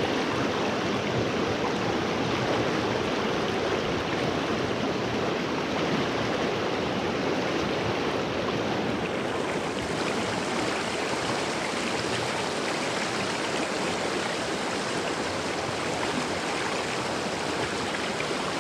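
Creek water rushing steadily, a loud even hiss that holds without a break.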